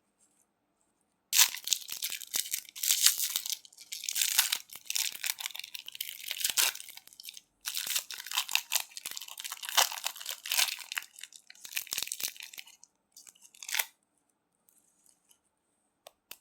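Close-up crunching and crackling of candy in two long runs of dense, sharp crunches, with one short crunch near the end.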